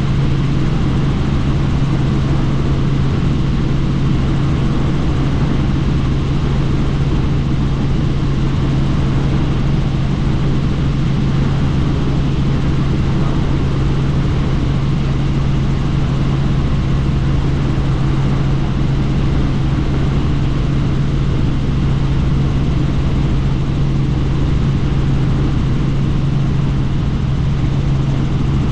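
Helicopter in flight, heard from on board: a loud, steady drone of rotor and engine with one strong low hum, unchanging throughout.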